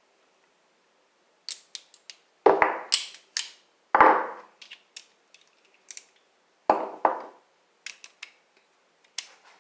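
Metal hand tools clanking and clicking as a socket wrench, extension and sockets are handled and swapped. There are a dozen or so irregular sharp knocks, three of them much louder.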